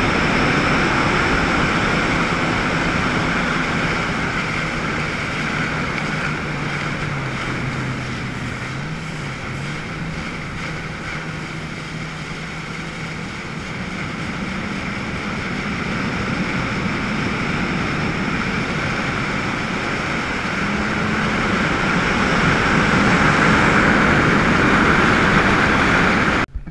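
Yamaha WaveRunner jet skis running at speed over open water, engine note with water rushing at the hull and wind on the microphone. The engine pitch dips and recovers a few times as the throttle changes, and the whole sound grows louder near the end before cutting off abruptly.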